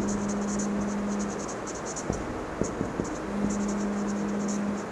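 Marker pen writing on a whiteboard: a run of short scratchy strokes with a few sharp ticks as the tip lifts and lands. A low steady hum sounds in two stretches, each over a second long.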